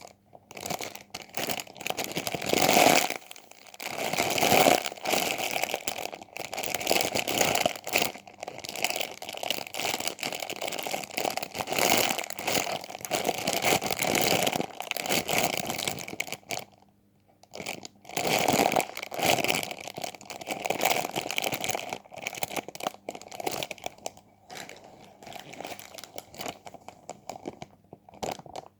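Busy crinkling and crunching of a squishy toy being squeezed and handled, with a short pause about seventeen seconds in.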